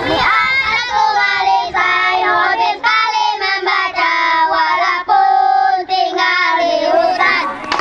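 A group of children singing a song together, in phrases with short breaks between them.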